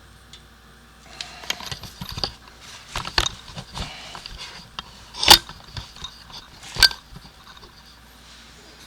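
Handling noises: rustling and small clicks and clatters, with two sharp knocks, the first about halfway through and the louder of the two, the second about a second and a half later.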